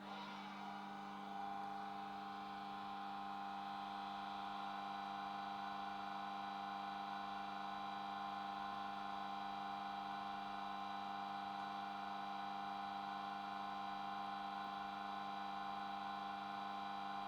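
A Hornby Class 50 model locomotive's DCC sound decoder plays a Legomanbiffo recording of the English Electric 16CSVT diesel through the model's small speaker. It starts up at the beginning and settles within a second or two into a steady idle with a constant hum, sounding like a cold start.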